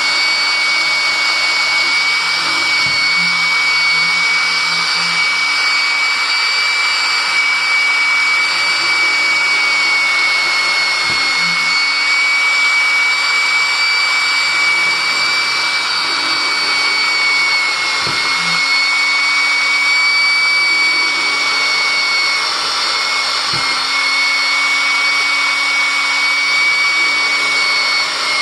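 Handheld rotary tool running at high speed with a steady high-pitched whine, grinding rust spots off the iron haft of an antique war hammer.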